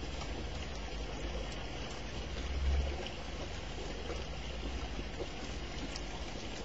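Steady hiss of rain falling, with a short low rumble about two and a half seconds in.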